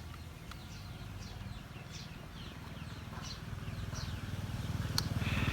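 A bird chirping over and over in short falling notes, two or three a second, over a low motor hum that grows steadily louder. A single sharp click about five seconds in.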